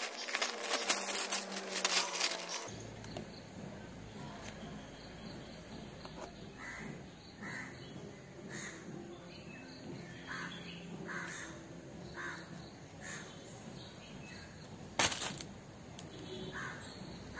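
Plastic packaging crinkling as a new scooter air filter element is pulled from its bag, then birds calling repeatedly in the background, with one sharp click about 15 seconds in.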